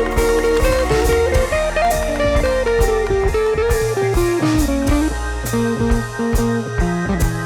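Instrumental background music: a guitar melody over bass and drums, with a steady beat.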